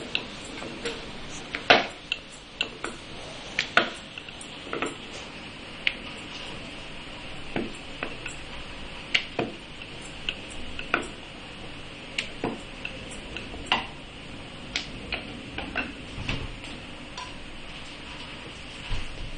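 Irregular wooden knocks and clacks, roughly one every half second to a second, from rolling puri dough out on a round wooden rolling board. A couple of duller, deeper thumps come near the end.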